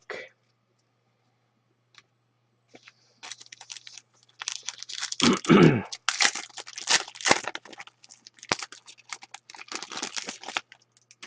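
A trading card pack wrapper being torn open and crinkled in the hands, in a dense run of crackling strokes that starts about three seconds in and stops shortly before the end, with one heavier crunch near the middle.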